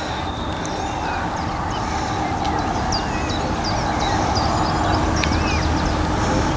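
Birds calling with many short, quick chirps over a steady rushing background that slowly grows louder, with a low rumble underneath.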